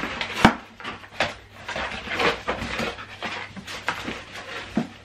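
A pet dog whining softly amid scattered short rustles, with one sharp knock about half a second in.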